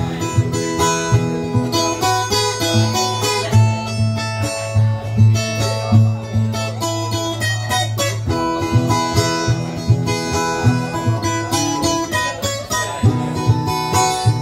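Instrumental break on a ten-string Brazilian viola caipira: steel strings plucked and strummed in a quick run of melody notes over a steady low bass line.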